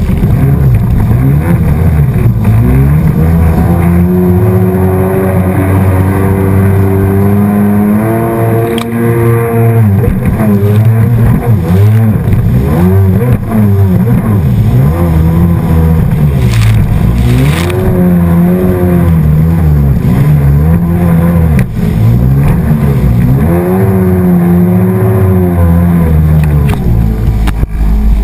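Watercraft engine running at speed, its pitch rising and falling every few seconds, over a steady rush of water.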